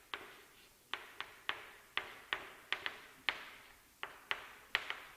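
Chalk clicking and tapping against a chalkboard while words are written: short, sharp clicks at irregular spacing, several a second, each letter stroke striking the board.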